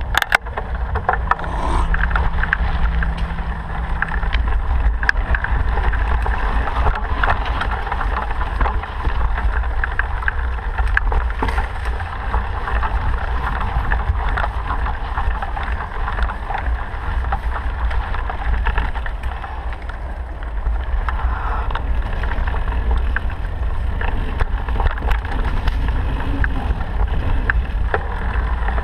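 Steady rush of wind on the microphone over the low rumble of travelling along a road at speed. A faint steady tone sounds during the first few seconds.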